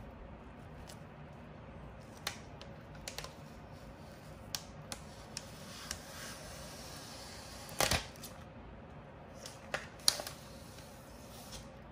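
Thin plastic protective film crinkling and crackling as it is peeled off the aluminium back of an iPad, with scattered sharp clicks and louder crackles about eight and ten seconds in.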